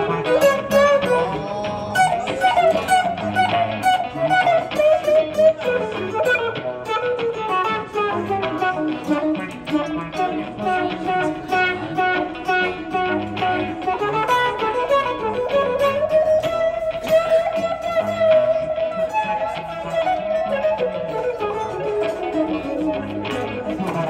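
Amplified acoustic guitar playing an instrumental passage, with picked notes throughout. Over it runs a sustained melody line that slides slowly down in pitch and back up.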